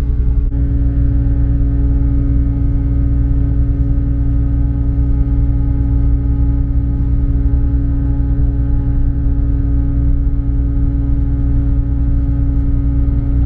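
Car ferry's diesel engines running under way, a steady low drone with a constant hum on top.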